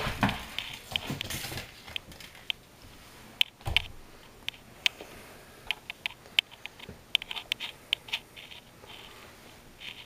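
A cat batting a foil ball about on a hardwood floor: scattered light clicks and taps from the foil and the cat's paws, with a soft thump a little under four seconds in.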